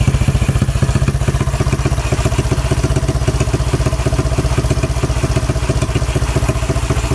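Bare Yamaha Mio single-cylinder four-stroke scooter engine idling steadily with an even, rapid putter, running again now that its broken cam sprocket has been replaced.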